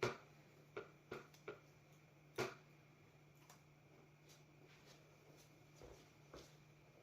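Near silence broken by soft, scattered clicks and taps, about nine of them at irregular spacing, the loudest about two and a half seconds in.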